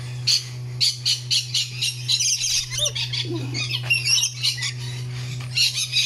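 Rainbow lorikeets squawking: a rapid, continuous run of short, shrill screeches, several a second.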